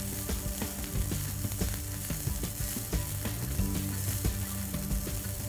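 A slotted metal spatula scraping and tapping against a nonstick pan as cooked rice is stirred and tossed in hot oil, with irregular clicks over a light sizzle.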